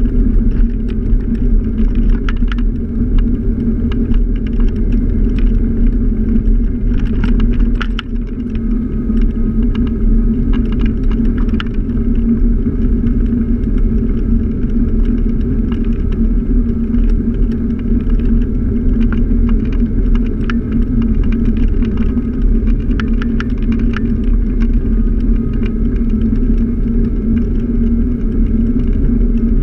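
Scooter's motor running steadily while riding at cruising speed, with wind and road rumble and many light rattling clicks throughout.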